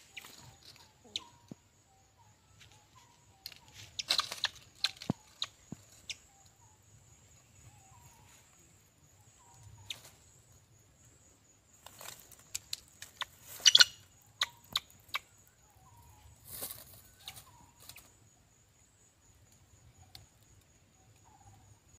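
Birds' wings flapping and scuffling on a nest of sticks in three bouts, with faint short chirps repeating about once a second. A steady high-pitched tone runs underneath.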